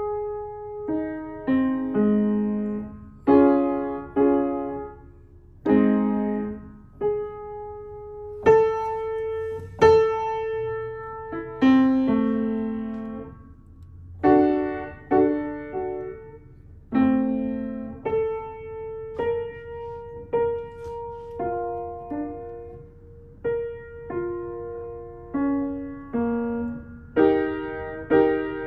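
Piano played by a young child experimenting at the keys: single notes and small clusters struck about once a second in no steady tune, each ringing and fading, with one middle-register note struck again and again.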